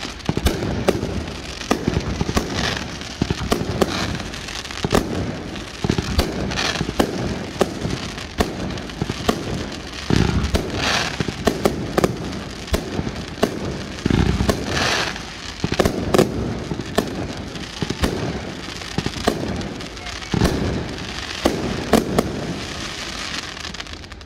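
Aerial fireworks going off in quick succession: many sharp bangs, and now and then about a second of dense crackling from crackle-effect bursts.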